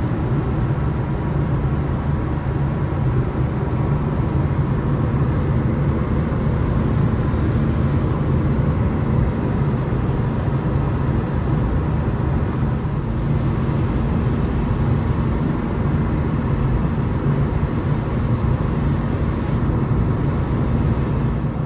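Steady road noise inside a moving car's cabin at highway speed: a low rumble of engine and tyres on wet road, with no breaks or sudden sounds.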